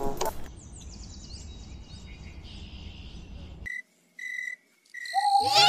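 Birds twittering in a run of quick, high, falling chirps over a faint low hum. After a brief silence come three short, evenly spaced, high-pitched cricket chirps, as night ambience. Near the end a louder sound with gliding pitches cuts in.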